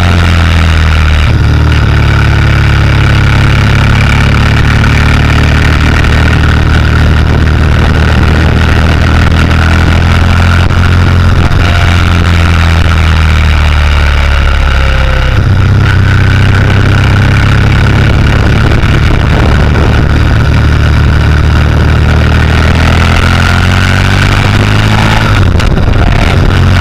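Motorcycle engine running under way, heard from on board the bike, its revs rising and falling a few times through the bends, with a steady rush of wind noise.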